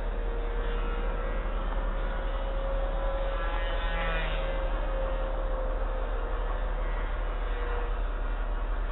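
Electric motor and small 6x4 propeller of an RC plane whining in flight, the pitch drifting slightly up and down. About four seconds in the whine briefly grows louder and buzzier. A steady low rumble sits underneath.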